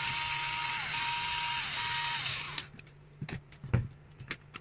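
A small electric power tool's motor running steadily for about two and a half seconds, its whine dipping briefly twice, then stopping; a few light clicks and knocks of parts being handled follow.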